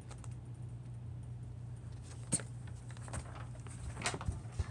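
Quiet small room with a steady low hum, broken by a few short knocks and clicks as someone gets up and moves about, the first about two seconds in and the rest toward the end.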